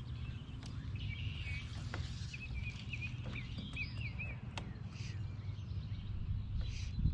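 Outdoor ambience with a small bird singing a quick run of short chirping notes for a few seconds, over a steady low rumble and scattered faint ticks.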